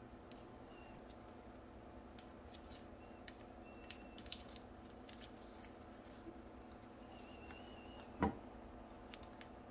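Blue painter's tape being pulled off the roll, torn and pressed around a wooden furniture leg: faint crackles and rips, with one louder thump about eight seconds in. A low steady hum sits underneath.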